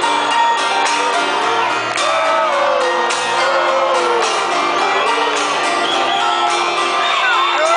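Live rock band playing a song, recorded from within the concert crowd, with audience voices shouting along over the music.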